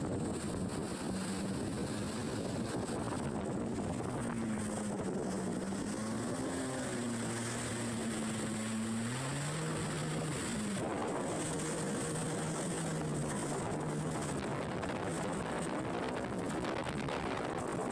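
Jet ski engine running under way, its pitch dipping and rising as the throttle changes, over a steady rush of wind and water.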